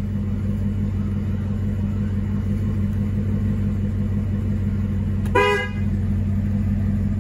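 A 2019 Chevrolet Camaro ZL1's supercharged 6.2 L V8 idling steadily, heard from inside the cabin, with one short toot about five seconds in.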